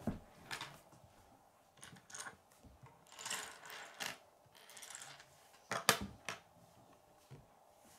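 Plastic K'nex pieces clicking and scraping against a wooden tabletop as they are handled and set down. Scattered short clicks and brief slides, with the loudest pair of clacks a little before six seconds in.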